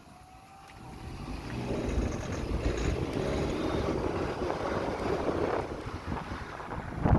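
2008 Vauxhall Zafira engine running, its sound building from about a second in as the revs rise, with wind noise on the microphone. A sharp thump comes near the end.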